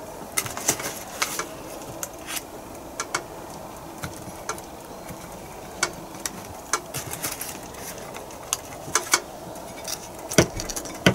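Table knife scraping and tapping as hard butter is spread on a split panini roll on a plate: scattered light clicks and scrapes at uneven intervals, a louder one near the end, over a steady low hum.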